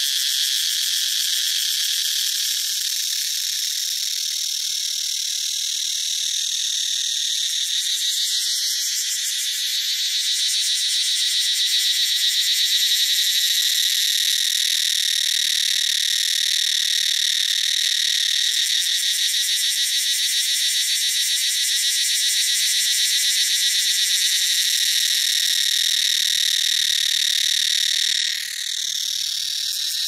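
Cicadas singing: a continuous, shrill, high-pitched buzz that briefly dips and slides down in pitch near the end.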